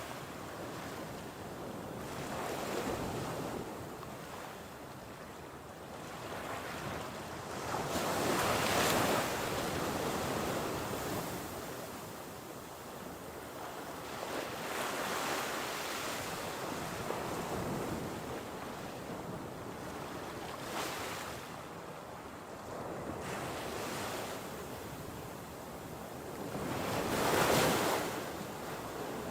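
Baltic Sea surf: waves breaking and washing in, swelling loudest about every six seconds, with wind blowing over the microphone.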